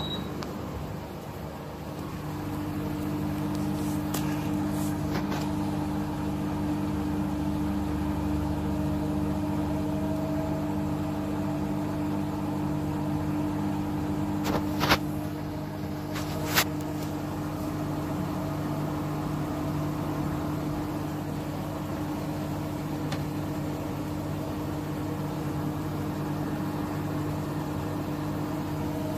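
Bosch Serie 6 front-loading washing machine spinning its drum on a drain-and-spin cycle, the motor holding a steady pitch after it picks up about two seconds in. A few sharp clicks sound around four, fifteen and sixteen and a half seconds in.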